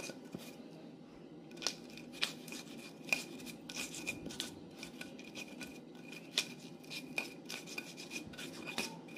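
Stone pestle grinding and crushing shallots, garlic and candlenuts with salt in a stone cobek (Indonesian mortar): a steady gritty scraping of stone on stone with irregular sharp cracks as pieces break.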